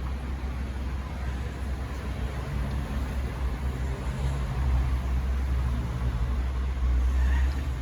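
A motor vehicle running with a steady low rumble that grows a little louder in the second half.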